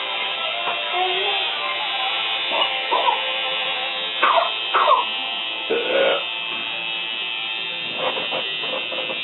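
Tattoo machine buzzing steadily.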